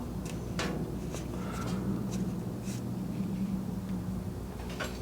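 Faint handling sounds of wiring work: a few small clicks and rustles as wires in heat-shrink tubing are fed through the motorcycle frame, over a steady low hum.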